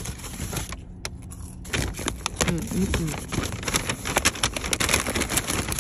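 Paper takeout bag rustling and crinkling as a hand digs in and pulls out a cardboard burger box, with many sharp crackles from about two seconds in.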